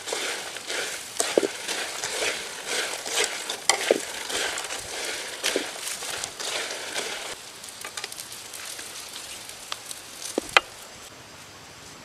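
Diving beetles stir-frying in a metal wok, a spatula repeatedly scraping and turning them through the sizzling oil. About seven seconds in the sizzle and scraping drop away, leaving a quieter hiss with a few sharp clicks, one louder click near the end.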